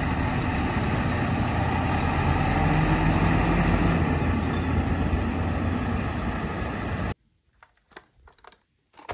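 Semi-trailer truck's diesel engine running as the rig drives slowly, steady with a slight rise in pitch partway through. It cuts off abruptly about seven seconds in, leaving a few faint clicks.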